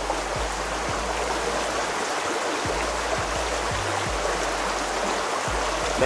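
Shallow rocky stream rushing steadily over stones, an even, unbroken water hiss.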